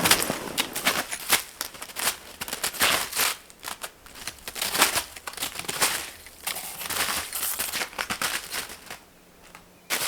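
Footsteps crunching through snow in an uneven series of steps. They die away near the end.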